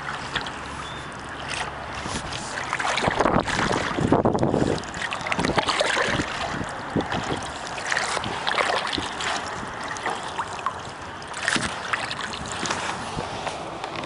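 Paddle strokes splashing in the water, with irregular knocks against the hull of a small poke boat. The splashing is loudest about three to five seconds in.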